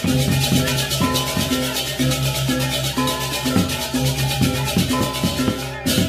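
Background music with a steady beat, repeating bass notes and a fast rattling rhythm on top.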